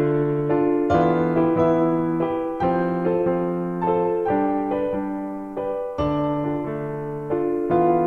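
Background music: a melody played on piano, each note struck and left to fade, about one or two notes a second.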